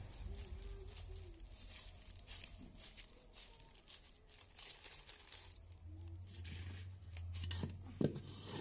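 Hands kneading and pressing sandy clay (soil with a lot of sand in it), giving an irregular gritty scraping and crunching, with a sharper knock about eight seconds in.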